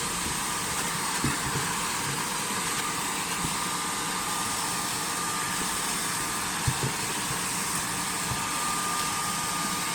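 Shrink-wrap tunnel's hot-air blower running steadily, a whirring hiss with a faint high whine, with a few short low knocks.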